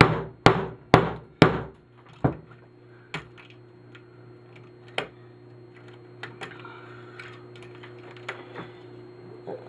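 Hammer blows on the aluminum housing of a power strip being broken apart for scrap: four hard strikes about two a second, a fifth a little over two seconds in, then a few lighter knocks and clinks.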